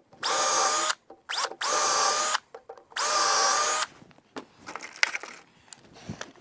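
Cordless power drill/driver run in three short bursts of under a second each, with a brief blip between the first two; each burst is a steady motor whine.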